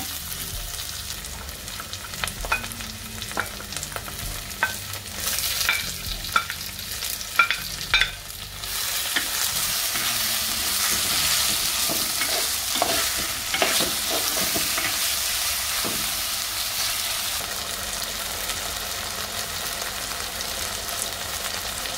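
Onion, garlic and spices frying in oil in a clay pot, with a spatula scraping and tapping against the pot. About eight seconds in, the sizzle turns louder and steady as chopped tomato and green chilli go into the hot oil.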